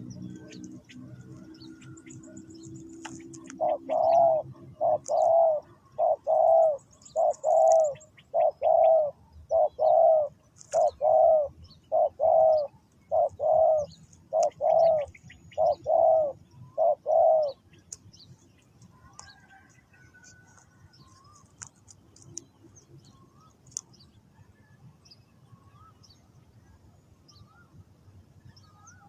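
Spotted dove cooing: a run of about thirteen low coos, roughly one a second, that stops after about seventeen seconds. Faint chirps of small birds come in and out throughout, and a low hum fades away in the first few seconds.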